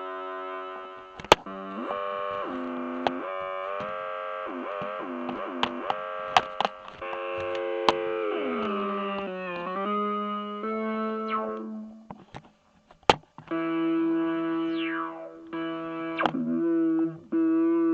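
Electronic drone music: layered held tones with effects and distortion, bending and sliding in pitch, broken by sharp clicks. It briefly drops out about two-thirds of the way through.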